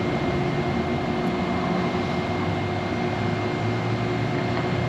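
DC fast charger running while it charges an electric car: a steady whir of cooling fans and power electronics with a constant high-pitched whine.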